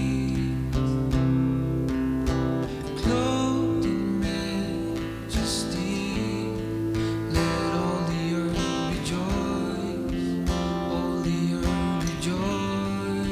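Music with an acoustic guitar playing.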